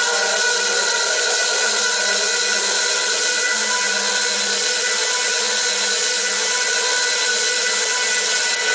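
Loud car sound system playback that comes through as a dense, harsh, steady noise with several held tones.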